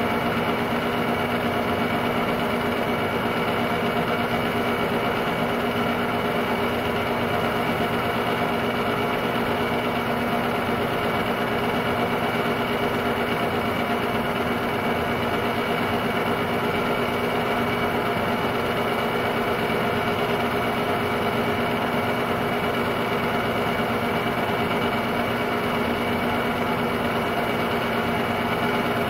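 Technicolor 810 8mm film-loop cartridge projector running steadily: a continuous mechanical whir of its motor, fan and film transport, with several steady hum tones and no change in level.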